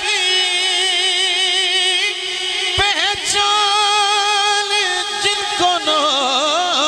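A man singing a naat solo into a microphone, holding long notes with a wavering vibrato. There is a short break about three seconds in, and quicker ornamented turns of pitch near the end.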